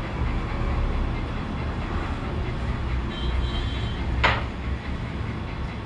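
Low, steady rumbling noise with one sharp click about four seconds in.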